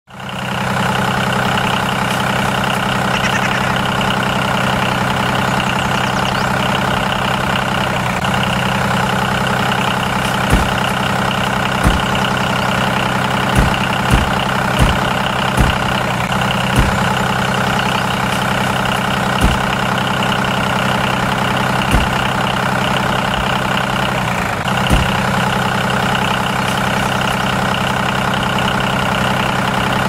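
Tractor engine idling steadily, with about ten sharp knocks scattered through the middle.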